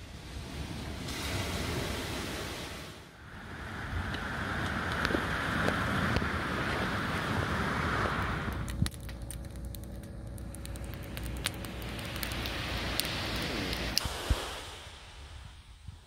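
Seaside ambience of surf and wind noise that changes at each cut, with a stretch of sharp crackling pops in the second half.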